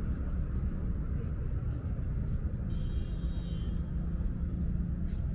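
Steady low rumble of vehicle engines and road traffic, with a faint engine hum and a short hiss about three seconds in.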